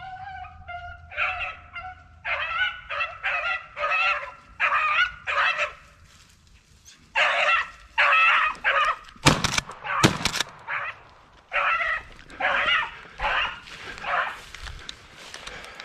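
Rabbit-hunting dogs baying on a chase: a few long held howls at first, then a run of short yelping barks about twice a second, breaking off and starting again. About nine seconds in, two loud sharp bangs come less than a second apart.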